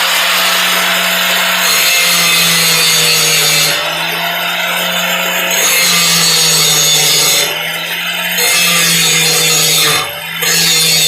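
Power grinder running steadily and grinding the steel cutting edge of a brush hog blade, taking heavy material off to reshape the edge. The grinding hiss lets up briefly three times as the grinder comes off the steel between passes, while the motor hum keeps on.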